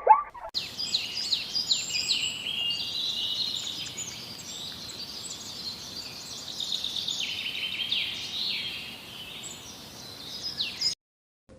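Many small birds chirping and peeping at once in a dense, overlapping chorus of short high calls, several of them falling in pitch. It cuts off abruptly near the end.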